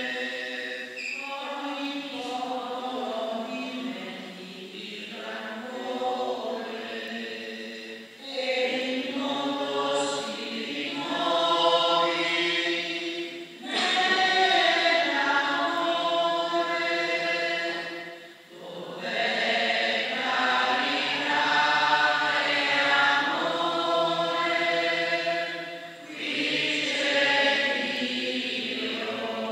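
Several voices singing a hymn during communion at Mass, in long phrases about five seconds each with brief pauses for breath between them.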